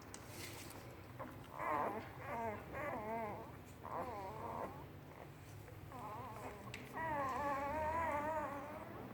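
Four-day-old German shepherd puppies whimpering: a string of short, wavering cries, the longest near the end.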